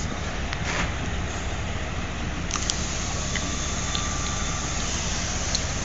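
Small diesel switcher locomotive's engine running with a steady low rumble, with a few sharp clicks.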